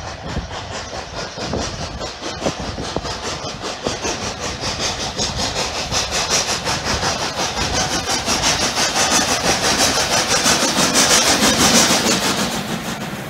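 FS Class 640 steam locomotive 640.003 working hard under steam, its exhaust beating in a fast, even chuff that grows louder as it approaches, then drops away near the end as it draws past.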